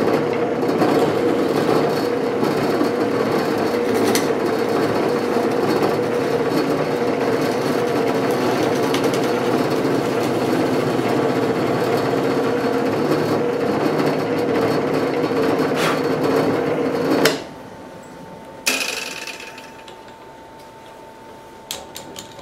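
Drill press running and boring a 3/8-inch hole through two stacked plywood pieces, a steady hum that cuts off suddenly about 17 seconds in.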